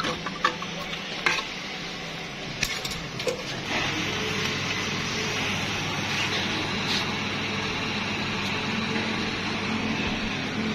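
A few metal clicks and knocks, then from about four seconds in a steady hum with a hiss: a fuel-station dispenser pumping diesel into a tractor's tank.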